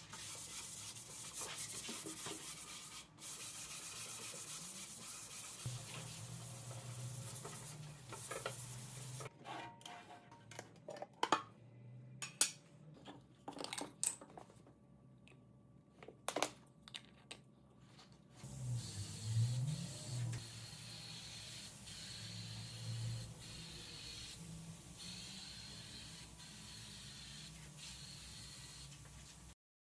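Small clicks and knocks of a gravity-feed spray gun and its plastic paint cup being handled on a wooden workbench. Later comes a steady faint hiss of the spray gun spraying white paint, broken by a few short pauses.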